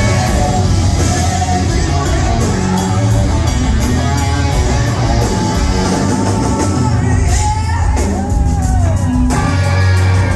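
Hard rock band playing live and loud: electric guitar, drum kit and singing. Near the end the cymbals drop away for about a second and a half under a bending melody line, then the full band comes back in.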